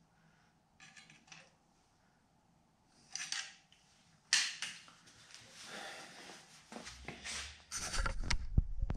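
Metal hand tools being handled and set down on a concrete floor: scattered clinks and knocks, the sharpest about four seconds in, then a stretch of rustling with heavier low bumps near the end.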